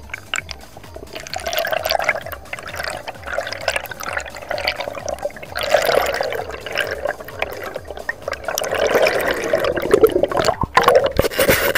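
Water rushing and bubbling against an underwater camera as a freediver swims, swelling in waves and loudest near the end as bubbles rise around the camera.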